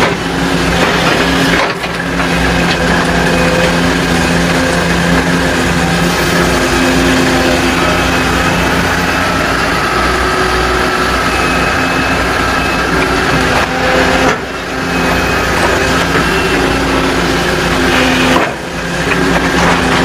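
Volvo tracked excavator's diesel engine running under working load as it swings and loads debris, its pitch shifting a little with the work. The sound dips briefly three times: once early, and twice in the last third.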